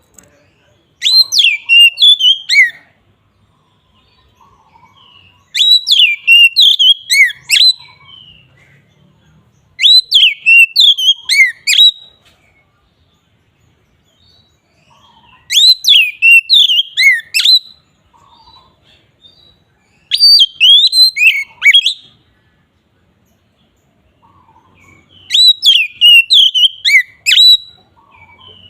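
Oriental magpie-robin (kacer) singing its full, open song: six loud phrases of quick whistled notes that sweep up and down, each about two seconds long, with pauses of two to three seconds between them.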